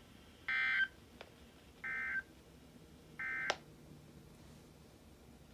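Weather radio speaker sounding the Emergency Alert System end-of-message code: three short, identical bursts of warbling data tones about a second apart, marking the end of the warning broadcast. A sharp click comes right at the end of the third burst.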